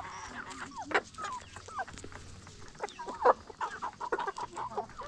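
A flock of free-range hens clucking as they are fed corn, many short calls overlapping, with a few sharp clicks; the loudest click comes about three seconds in.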